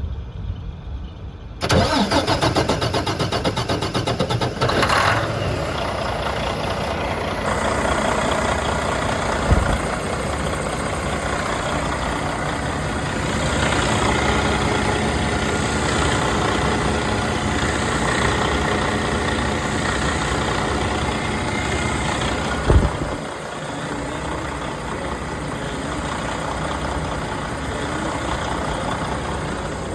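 Diesel engine of a 2020 Freightliner Cascadia semi truck cranking hard for about three seconds on a starter jumped across its terminals with pliers, with starting fluid in the intake, then catching and settling into a steady idle. A single sharp knock comes about 23 seconds in, after which the engine sound is slightly quieter.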